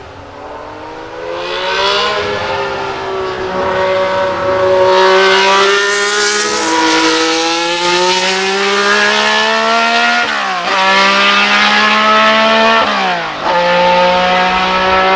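Ferrari 312 B2's 3.0-litre flat-12 engine running hard at high revs, its pitch climbing and swaying as the car accelerates. Near the end come two quick upshifts, each a sudden drop in pitch followed by a fresh climb.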